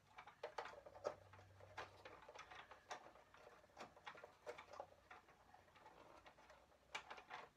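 Faint, irregular clicks and taps of hard plastic as a small action figure is worked into the seat of a plastic toy armoured personnel carrier.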